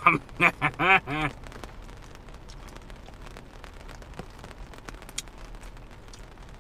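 Rain pattering steadily on a car's roof and windows, heard from inside the cabin, with many faint drop ticks. A man laughs in about five short bursts at the start.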